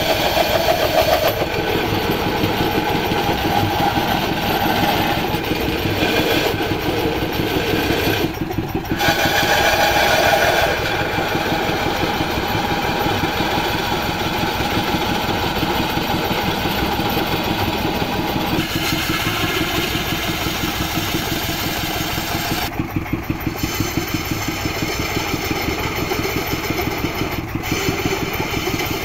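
A manual wood lathe runs steadily, its motor and drive giving a fast, even throb. A hiss swells a few times in the first ten seconds as the spinning wooden vase is worked.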